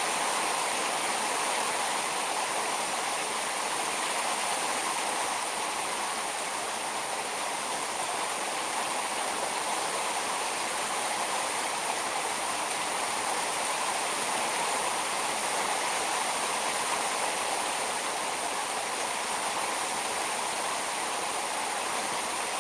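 Heavy downpour of rain pouring steadily onto a shade net and a parked car, an even unbroken hiss.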